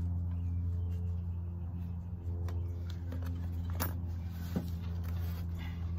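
A steady low hum throughout, with a few light clicks and knocks as teak chair parts and fittings are worked into place by hand.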